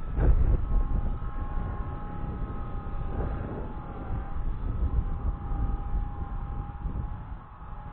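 Blade 180 CFX electric RC helicopter in flight, its motor and rotor whine holding a fairly steady pitch, with wind buffeting the microphone.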